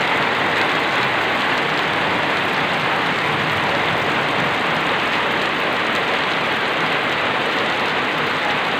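Heavy rain pouring steadily onto a paved road and the leaves beside it: a dense, even hiss that does not let up.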